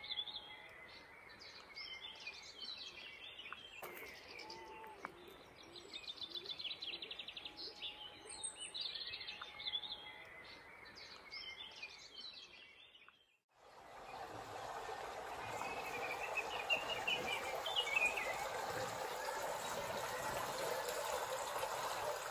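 Garden birdsong: several small birds singing and chirping, with a fast trill about six seconds in. After a break about thirteen seconds in, a louder steady rushing noise takes over, with a few bird chirps over it.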